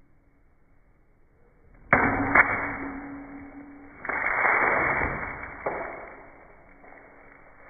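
A water balloon struck with a bat and bursting: a sudden hit about two seconds in with a sharp crack just after, then a second long rush of noise from about four seconds in that fades away.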